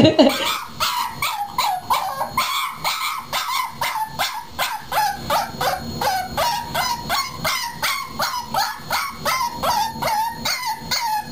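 A puppy yipping in a rapid run of short, high-pitched cries, about three a second, each dropping in pitch. At the very start, a lower drawn-out dog call breaks off.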